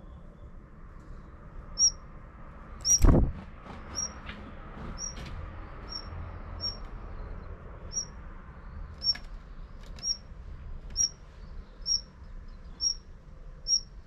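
Female Daurian redstart calling: a short, thin, high whistle repeated about once a second, a dozen or so times, with a few sharp clicks among them. A single low thump about three seconds in is the loudest sound.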